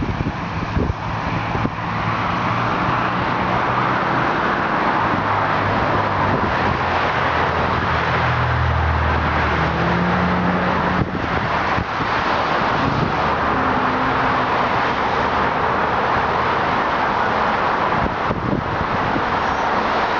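Steady motor-vehicle and roadway noise with wind on the microphone, and a low engine hum that grows louder about eight to ten seconds in.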